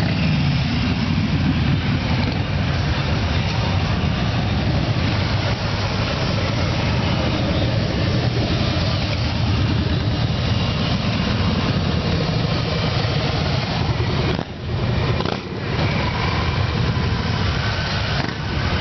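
A stream of motorcycles, mostly cruisers, rolling past one after another at low speed. Their engines make a steady, continuous din that dips briefly a few times near the end.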